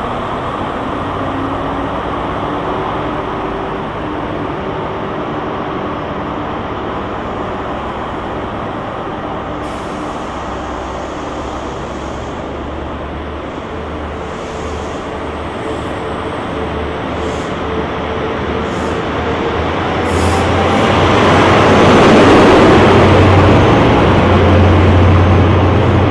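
Diesel train engine running steadily at a station platform. From about 20 s in a deeper, louder engine note builds as a Class 43 HST power car comes along the platform.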